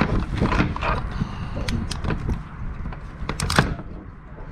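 Irregular knocks and clatter of someone moving about and handling gear on a boat, the loudest a sharp knock about three and a half seconds in, over a steady low wind rumble on the microphone.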